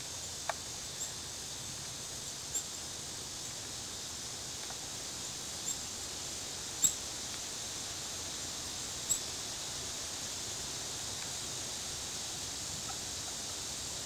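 Steady high hiss of the woods, with a handful of short, high chip notes from small songbirds scattered every second or few seconds, the loudest a little under seven seconds in.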